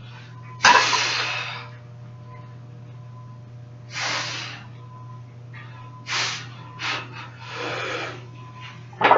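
A weightlifter's sharp, forceful breaths while bent over the loaded barbell, bracing before a max-effort deadlift. There are about six noisy breaths at uneven gaps, the first about a second in and the loudest, over a steady low hum.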